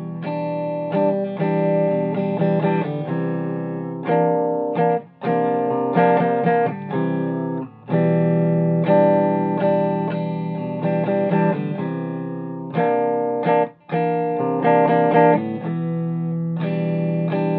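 Agile AS-1000 electric guitar played through a 1965 Ampeg amp on both pickups (middle position) with volume and tone full up, strumming a chord progression with short breaks between phrases.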